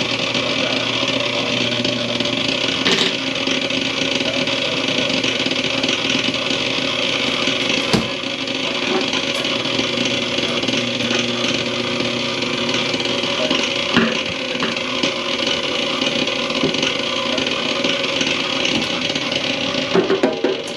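Drain-cleaning machine running steadily while clearing a plugged kitchen-sink drain, with a few sharp knocks along the way.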